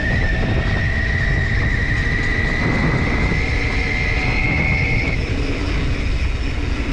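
Bimotal Elevate 750 W e-bike drive motor whirring under throttle: a steady high whine that slowly rises in pitch as the bike speeds up, then stops about five seconds in. Underneath, a constant rumble of wind on the microphone and tyres rolling on dirt.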